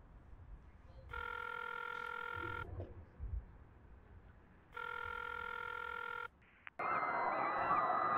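Phone call ringing tone heard while dialling out: two steady electronic rings of about a second and a half each. Near the end the call connects and a sudden loud din of many rising and falling shrieks breaks in.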